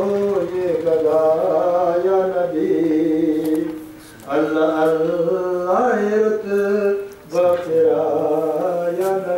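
A man's voice chanting poetry in a melodic, half-sung recitation style, with long held notes. The phrases break off briefly about four seconds in and again after seven seconds.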